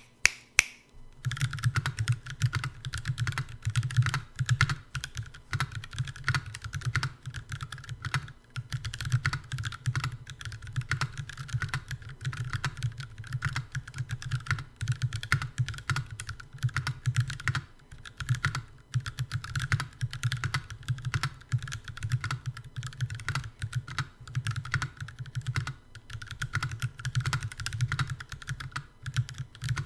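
Typing on a Percent Canoe mechanical keyboard with lubed Kailh Box Black linear switches and GMK keycaps: steady, fast keystrokes with a deep clack. A couple of single key clicks come first, then continuous typing with short breaks about 8 and 18 seconds in.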